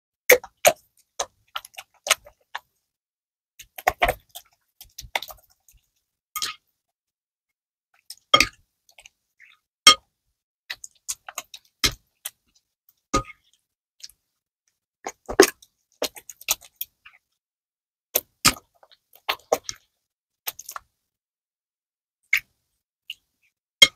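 A small spoon stirring slime glue in a glass bowl. It makes irregular, separate clicks and clinks against the glass, with quiet between them.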